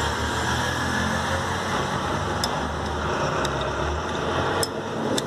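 Steady low mechanical hum, like an engine running, with four light metallic clicks while a roller is fitted into a motorcycle's one-way starter clutch.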